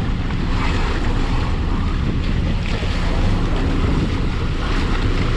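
Boat engines running with sea water churning and sloshing between the hulls, and wind buffeting the microphone; a steady noise throughout.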